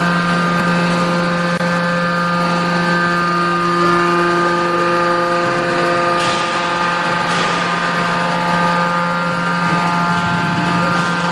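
Hydraulic scrap-metal baler's power unit running with a steady, even whine. Three short surges of hiss come in the second half.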